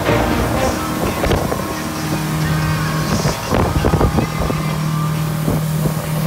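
A 200-horsepower motorboat engine running steadily at cruising speed, its hum clearer from about two seconds in, under wind on the microphone and rushing water. There are a few thumps near the middle.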